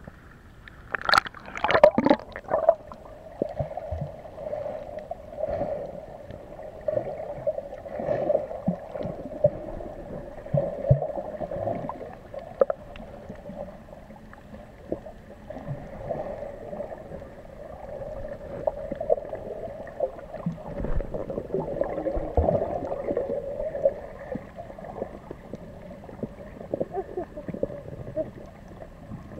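Muffled underwater sound from a submerged action camera. Splashing comes as it goes under, about a second in, followed by a steady low hum with gurgling bubbles and scattered knocks against the housing.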